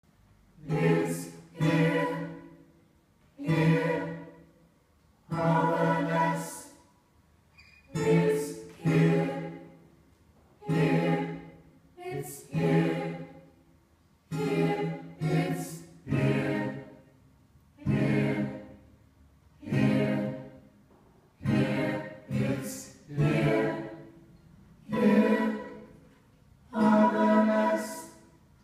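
A group of voices singing short phrases in unison, one phrase about every second and a half to two seconds, each separated by a brief silence.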